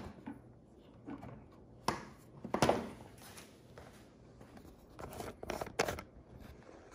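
Hands working a rubber breather line loose on a Briggs & Stratton Intek engine: a handful of short clicks and scrapes of rubber and plastic, the loudest about two and a half seconds in, with quiet between.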